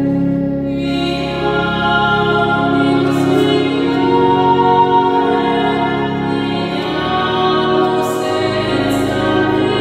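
A slow devotional hymn in Italian: a sung voice holds long notes over sustained accompaniment.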